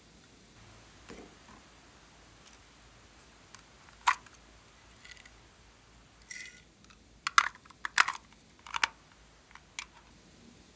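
Sharp clicks and taps of hard plastic, clustered a little past the middle, with a brief rattle just before them, as a small plastic box is tipped and knocked against a glass dish to empty it; one lone click comes earlier.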